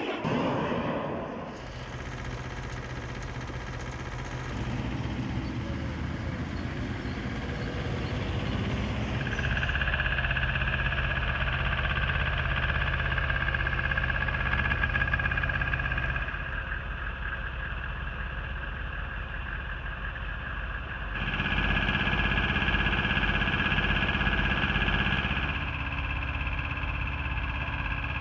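A missile's launch roar fading away in the first second or so, followed by a steady hum that shifts abruptly in pitch and loudness several times.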